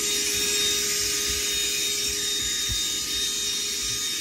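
Vacuum cleaner running steadily, its motor giving an even, high whine over the rush of air.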